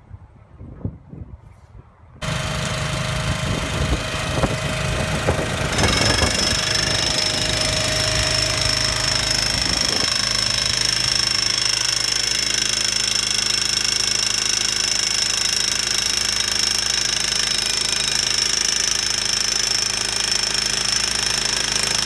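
Jackhammer driving SureFoot steel footing pins into the ground, hammering loudly and steadily after starting abruptly about two seconds in.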